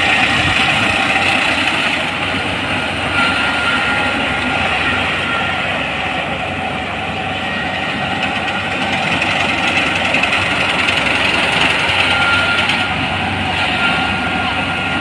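Kubota PRO588-iG mini combine harvester running, a loud steady machine noise of engine and mechanism with a faint high whine.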